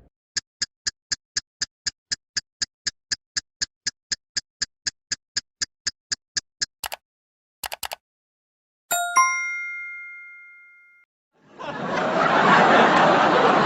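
A run of short sound effects: a rapid series of short, even ticks or beeps, about four a second, for some six seconds; a few clicks; a single bright ding that rings out for about two seconds; then a crowd-like noise starts near the end.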